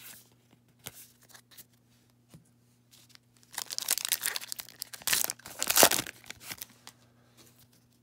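A few light clicks of trading cards being handled, then, about three and a half seconds in, a 2020 Topps Heritage baseball card pack wrapper torn open and crinkled for a few seconds.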